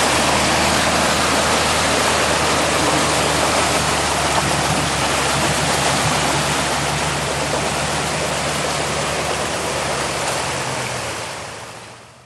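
Hummer H1 engine running steadily, a low drone under a loud rushing noise, fading away near the end.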